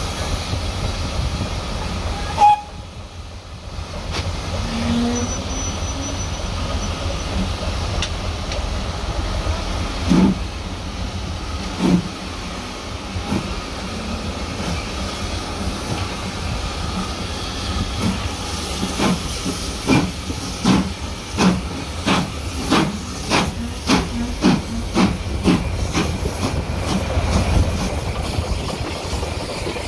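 Steam locomotive getting away under steam, hissing, its exhaust beats slow at first and then quickening to an even rhythm of about one and a half beats a second over a steady low rumble. A short loud sound comes about two and a half seconds in.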